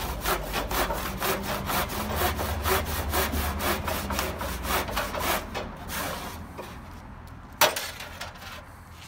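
Handsaw cutting through a plaster cornice moulding in a wooden mitre box, with steady back-and-forth rasping strokes at about three a second that die away about six seconds in. A single sharp knock comes shortly after.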